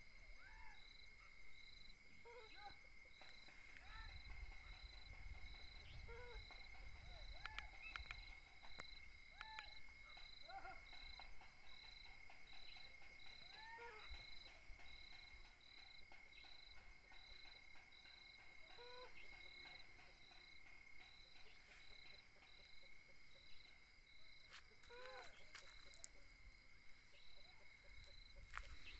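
Faint night chorus of insects, likely crickets: a steady high trill and a higher chirp repeating a bit faster than once a second, with short rising-and-falling calls from another animal now and then.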